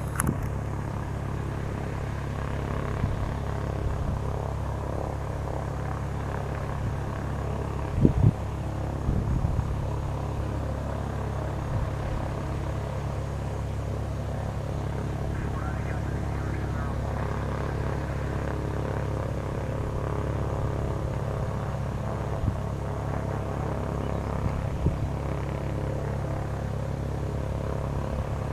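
Cessna 182T Skylane's six-cylinder Lycoming IO-540 engine and propeller running at a steady low taxi power, a constant low drone. A couple of brief thumps stand out about eight and nine seconds in.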